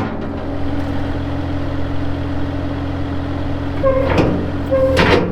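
Bobcat skid steer's diesel engine running steadily. About four seconds in, a held tone comes in with two sharp clunks, as the machine's hydraulics are worked.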